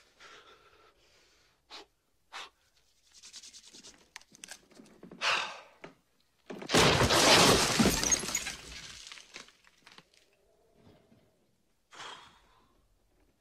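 A loud crash lasting about two seconds, like things breaking and falling, with softer rustling and small knocks before and after it.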